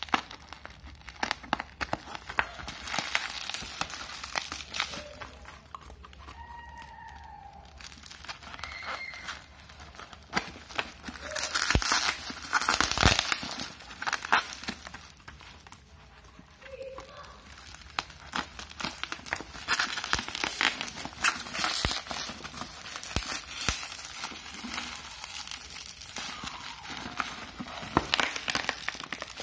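Plastic parcel wrapping, packing tape and bubble wrap crinkling and tearing as a package is pulled open by hand, in irregular handfuls with many small crackles. It is loudest a little before halfway.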